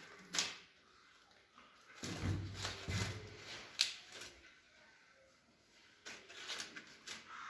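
Sneakers being handled on a wooden floor: scattered knocks and clicks with rustling, two sharp clicks standing out, one about half a second in and one near the four-second mark.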